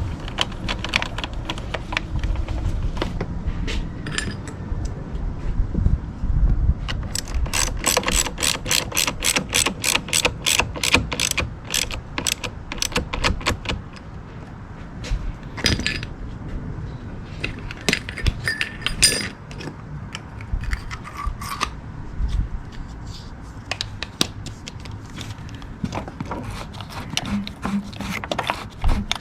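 A 1/4-inch ratchet with a 10 mm socket clicking in a quick, even run of about five clicks a second, as a battery terminal nut is worked. Scattered metallic clinks and knocks from tools are heard before and after the run.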